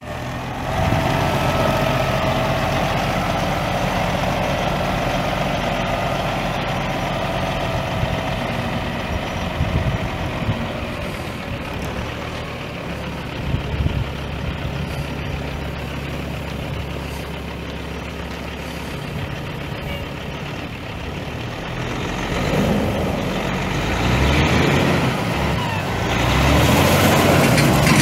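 Caterpillar C15 Acert inline-six turbo diesel of a Kenworth T660 semi truck idling steadily, growing louder over the last few seconds.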